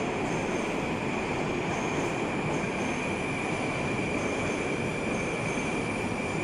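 Metro train running on the station track: a steady rumble of wheels on rail with a steady high squeal over it.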